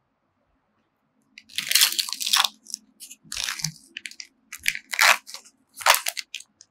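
Plastic tofu tub being opened by hand, its film lid peeling and crinkling in about five crackly bursts that start a second and a half in.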